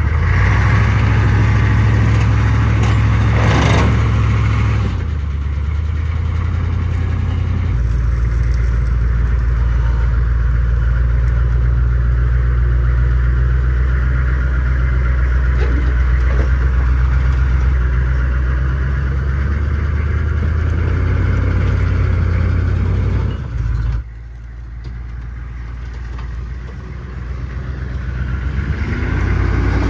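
Military Humvee's diesel V8 engine running loud and steady as it is driven slowly through sand, its note shifting a few times. The engine sound drops away about three-quarters of the way through, then revs back up near the end.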